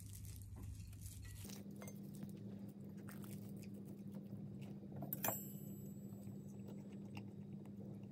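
Quiet tableware sounds at a meal: faint clicks of cutlery and dishes, with one sharp, ringing clink a little past halfway, over a steady low room hum.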